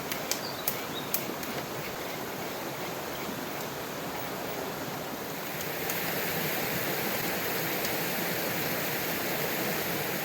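Steady rushing of a flowing river, with a few light clicks in the first second. About six seconds in, the water grows louder and brighter.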